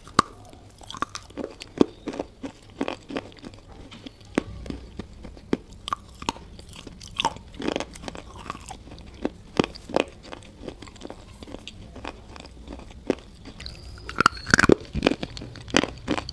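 A person biting and chewing something hard and brittle in close-up: sharp, irregular crunches a fraction of a second to a second apart, coming thickest near the end.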